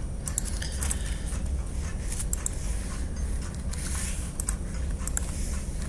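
Computer mouse buttons clicking a few times, mostly in quick press-and-release pairs, over a steady low hum.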